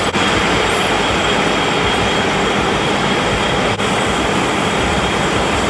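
Steady machinery din in a welding-rod factory: an even, unbroken noise with a faint high steady tone above it, dipping briefly twice.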